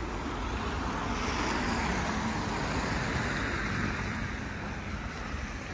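Road traffic: a vehicle passing on the road. Its noise swells about a second in and fades again near the end.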